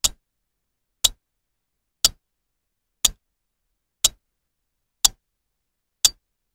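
Clock ticking, one sharp tick each second, seven ticks in all.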